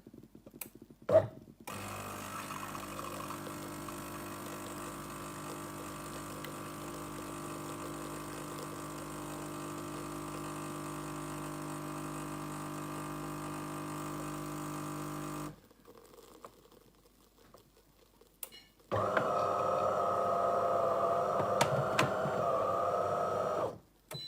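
De'Longhi Eletta automatic espresso machine running. After a click, a steady motor hum lasts about fourteen seconds. A pause follows, then a louder, higher hum of about five seconds.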